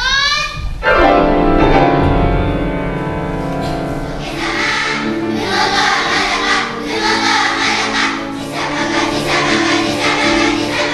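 A children's choir singing in unison with instrumental accompaniment. A spoken unison line ends just as the accompaniment enters about a second in with sustained notes, and the children's voices join in about four seconds in.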